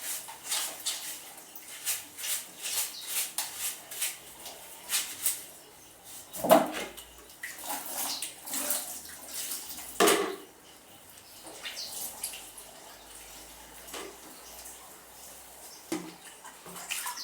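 Dishes and utensils washed by hand in a basin of water: splashing with frequent clinks. Two louder knocks come about six and a half and ten seconds in, and it grows quieter after that.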